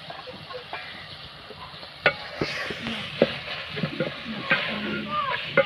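A metal spatula stirring and scraping guar beans and onions frying in a metal pot, with a sizzling hiss. From about two seconds in, the spatula knocks and clicks irregularly against the pot.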